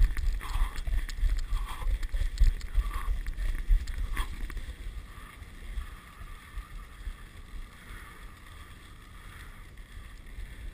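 Dog sled running along a snow trail: runners hissing over the snow with wind buffeting the microphone, heavier in the first few seconds and easing to a quieter, even hiss. A single sharp click about four seconds in.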